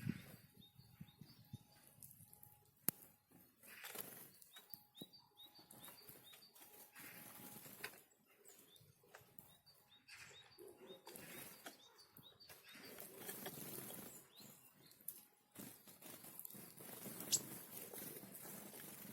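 Faint sounds of small forest birds at a winter feeding spot: wings fluttering as they come and go, with short, high call notes and a few light taps.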